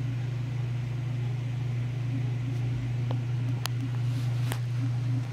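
A steady low hum, with a few faint ticks about three to four and a half seconds in.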